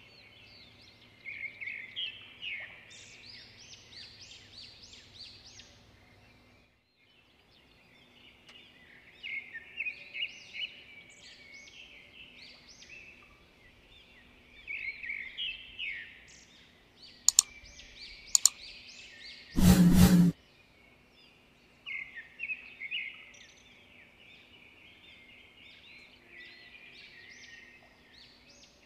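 Small birds chirping in quick clusters of short high notes. Two sharp clicks and then a single loud, brief thump come about two-thirds of the way through.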